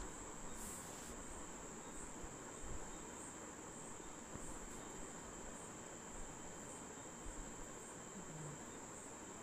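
Insects singing: a steady high-pitched drone with a faint regular pulse, over low background noise.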